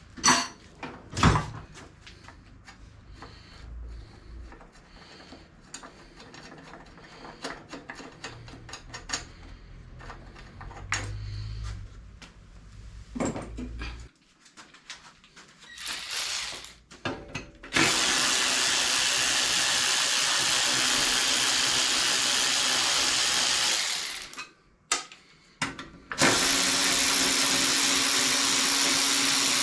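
Tools and parts clicking and knocking during teardown work, then a handheld power tool of the drill kind runs steadily for about six seconds, stops, and starts again about two seconds later, running on.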